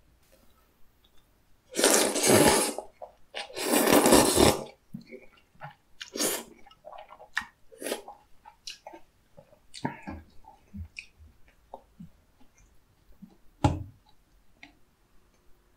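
Two long, loud slurps of sauce-coated noodles from soupy tteokbokki, about two and four seconds in, followed by wet chewing with scattered small clicks.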